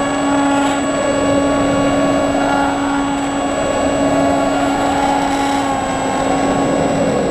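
Electric motor and propeller of an Easy Glider RC motor-glider heard from its onboard camera, running at a steady high pitch with a wavering whine over a rush of air, stopping near the end.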